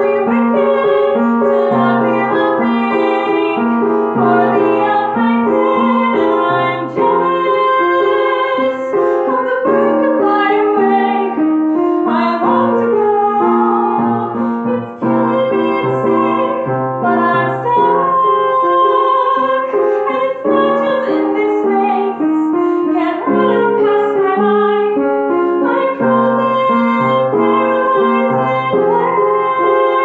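A woman singing, accompanying herself on an upright piano.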